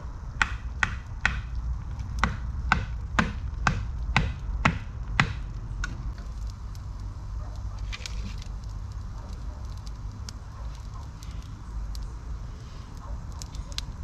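Pieces of dry firewood knocking and clacking together as sticks are laid onto a campfire, sharp knocks about twice a second for the first five seconds, then a few fainter ones.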